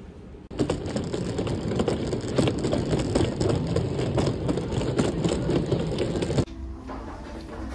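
Hard-shell suitcase's wheels rolling over paving tiles: a steady rolling rattle with rapid clicks as the wheels cross the tile joints. It starts abruptly about half a second in and cuts off sharply about a second before the end.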